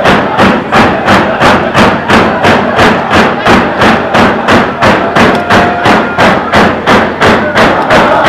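Tlicho (Dogrib) drummers beating round hand drums in a steady, even beat, with voices singing faintly underneath; a held sung note comes in about five seconds in.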